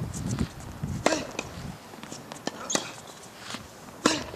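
Tennis ball struck by rackets in a rally: three sharp pocks about every second and a half, with fainter ball bounces between them. Low voices murmur in the first second or so.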